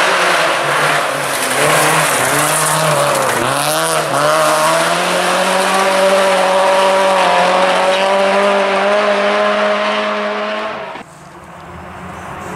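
Renault Clio RS rally car's 2.0-litre four-cylinder engine at high revs on a gravel stage, with a hiss from the tyres on gravel. The engine note dips and recovers about three to four seconds in, then holds high and steady as the car pulls away. Near the end it cuts off suddenly, and a fainter engine sound slowly rises.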